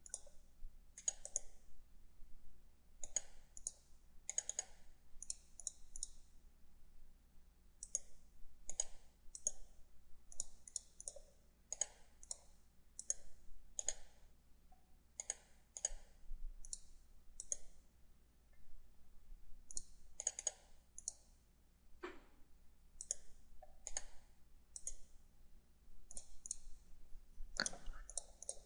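Computer mouse buttons clicking at an irregular pace: single clicks and quick double clicks, a few every second or two.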